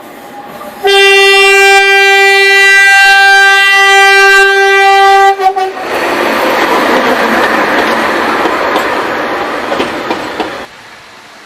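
A narrow-gauge train's horn sounds one long steady note for about five seconds. It is followed by about five seconds of loud rushing train noise, which stops abruptly.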